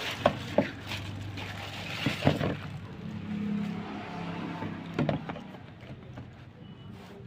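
Handling noises: several sharp knocks and clicks, as from a box and packaging being handled, over a steady low hum.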